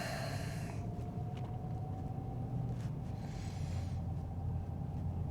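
Steady low background hum with a faint steady tone above it, and two soft breaths, one at the start and one about three seconds in.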